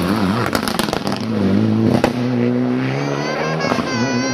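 Mitsubishi Lancer Evolution rally car passing close with its exhaust crackling and popping, then accelerating hard away. The engine note climbs, drops back at a gear change with a sharp pop about halfway, and climbs again through another upshift near the end.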